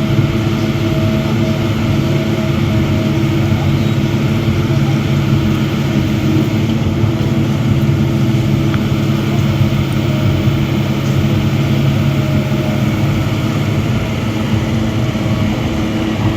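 Heavy earthmoving machinery, excavator or dump truck diesel engines, running steadily with an even, unchanging drone.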